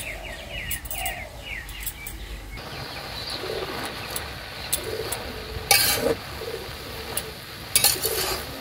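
Small birds chirping in a quick run of falling notes, then pigeons cooing in low, repeated notes. Two loud sharp knocks come about six and eight seconds in.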